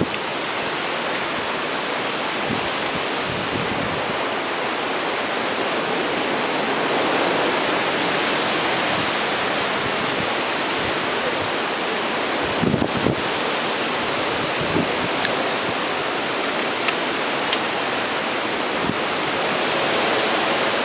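Strong wind from Hurricane Sandy rushing steadily and gusting, swelling a little about a third of the way in. A few low thumps come about twelve seconds in.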